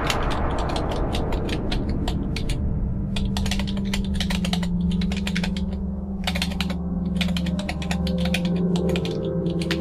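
Rapid, irregular sharp clicks in quick clusters with short pauses between them, over a steady low hum that comes in about three seconds in.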